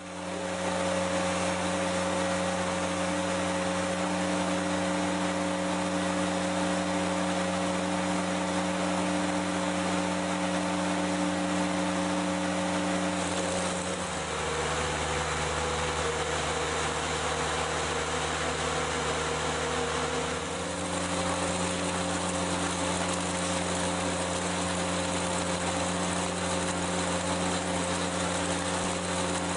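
Blastcrete Mason Mate mixer-pump running steadily with an engine-like hum. Some fourteen seconds in, its pitch drops for about six seconds, then comes back up to where it was.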